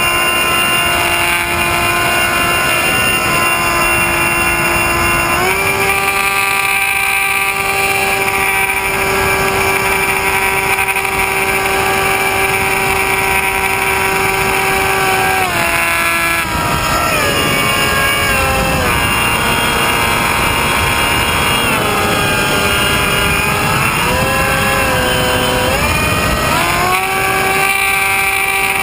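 Motor and propeller of an FPV RC plane, heard from its onboard camera: a steady whine over wind rush that steps up in pitch about five seconds in, drops around the middle, wavers up and down with the throttle for several seconds, and rises again near the end.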